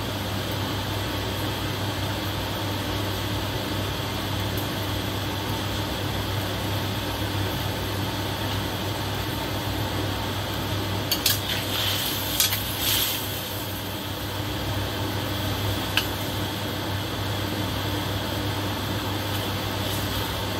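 Chicken wings simmering in sauce in a steel wok over a steady fan-like hum and hiss. A quick run of sharp metallic clinks on the pan comes about halfway through, and a single clink a few seconds later.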